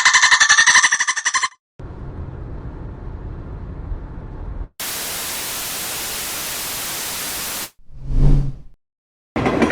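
A run of separate sound-effect clips. First a rapid pulsing buzz, then the low rumble of a car interior while driving, then about three seconds of TV static hiss. A quick swish transition follows about eight seconds in, and train interior noise starts near the end.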